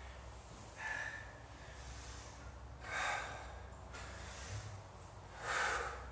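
A person breathing hard through squat-to-bicep-curl reps with dumbbells: three forceful breaths about two seconds apart, one with each rep.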